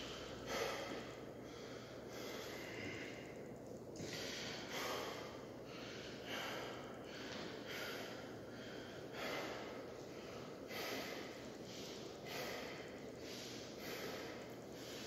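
A man breathing hard through his nose and mouth, one heavy breath about every second: he is catching his breath after a set of ab-roller rollouts.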